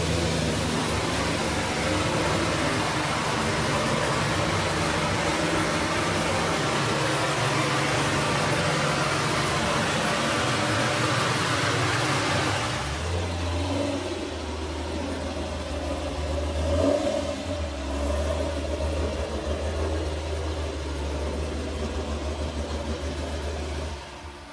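Chevrolet Camaro SS's V8 engine running at idle, a steady low rumble. About halfway through the hissy part of the sound falls away, and a few seconds later there is a brief swell in engine level.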